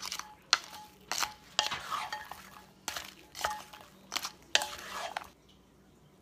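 Wooden spatula stirring shrimp and spaghetti in a stoneware baker, scraping and knocking against the dish in quick strokes about two a second. The stirring stops about a second before the end.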